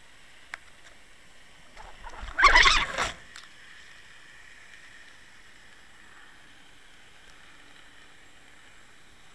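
Underwater camera housing jostled on a fishing rig: a faint steady hiss, a single sharp click about half a second in, then a loud scraping, rushing burst of knocks and water noise lasting about a second and a half, from about two seconds in.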